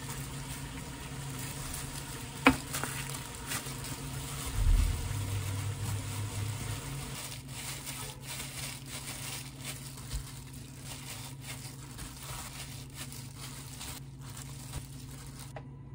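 Disposable plastic gloves crinkling as hands mix and squeeze cooked rice with seaweed flakes in a glass bowl and press it into rice balls, with small scattered clicks. A sharp click comes about two and a half seconds in and a low thump near five seconds, over a steady low hum.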